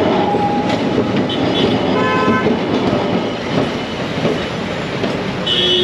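Kolkata two-car electric tram rumbling along its street rails as it passes, amid steady traffic noise. A vehicle horn sounds briefly about two seconds in, and another short horn toot comes near the end.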